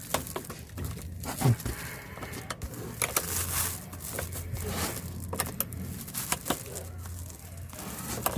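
Irregular light metallic clicks and scrapes of a 10 mm wrench and the negative battery cable terminal being worked loose and handled, over a faint low hum.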